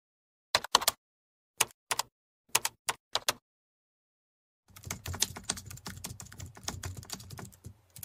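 Keyboard typing: first a few keystrokes in small clusters of two or three, then, after a short pause, a long run of fast, continuous typing.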